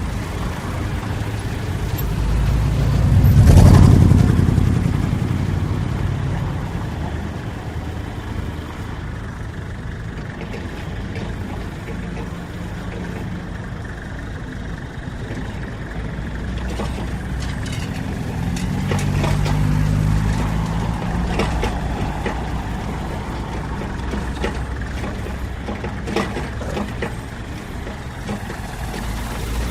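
Road traffic and construction-site ambience: engines of heavy vehicles and cars run continuously. A loud vehicle passes, swelling and fading about three to four seconds in. Later an engine tone rises and falls, with scattered knocks and clanks.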